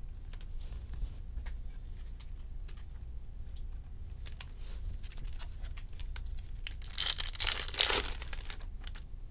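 Baseball cards being handled and slid past one another with light clicks, then about seven seconds in a loud burst of crinkling plastic wrapper lasting about a second.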